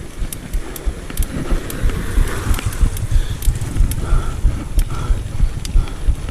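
Wind buffeting the action-camera microphone during a bicycle ride, with irregular sharp clicks and rattles from the bike.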